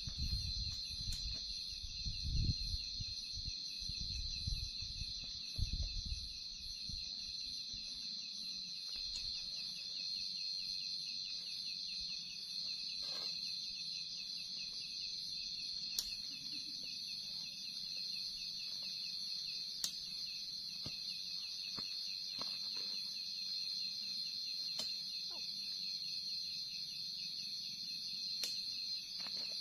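Steady, high-pitched trilling chorus of night insects that never lets up. There are a few low thumps in the first six seconds and a couple of faint sharp clicks later.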